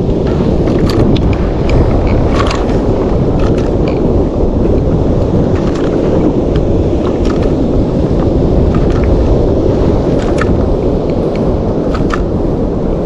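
Strong wind buffeting the microphone over choppy sea water rushing and splashing past a moving fishing kayak: a loud, steady rumbling noise with a few scattered light clicks.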